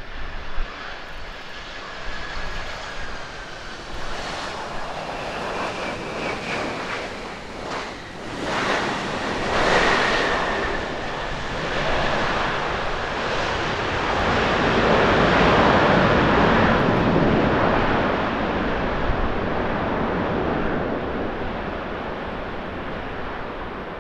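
Boeing 767-300ER airliner landing. Its two jet engines whine thinly as it touches down. Then a loud rushing engine roar swells, peaks about halfway through as reverse thrust slows it on the runway, and fades slowly near the end.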